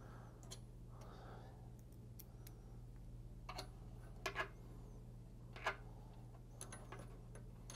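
Small metal screws and a steel mounting bracket being handled as the screws are twisted in by hand: a few faint, scattered clicks and taps over a low steady hum.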